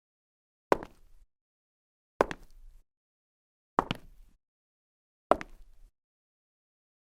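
Single footsteps of a woman, four of them about a second and a half apart, each a sharp strike followed by a lighter tap, with dead silence between.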